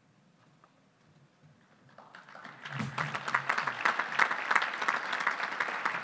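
An audience applauding: near silence at first, then clapping starts about two seconds in and quickly builds into steady applause.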